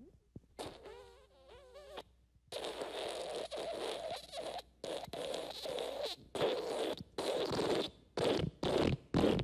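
Fart sound effects: first a short squeaky fart with a wavering pitch, then, after a brief gap, a long wet, sputtering fart that breaks into a quick string of short ones near the end.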